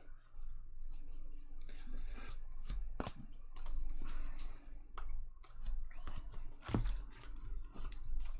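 Trading-card packs and cards being handled: rustling and rubbing with many scattered sharp clicks, two of them louder, about three seconds in and just before seven seconds.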